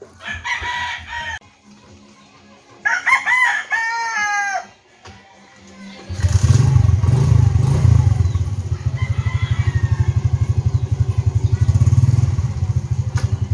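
A rooster crows twice, the second crow longer. About halfway through, a small motor scooter's engine is running, with a fast, even throb that carries on to the end.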